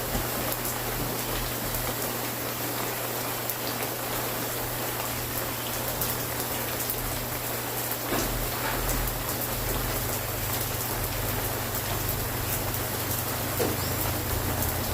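Steady rain falling, with scattered sharp drop ticks, over a low steady hum that grows louder near the end.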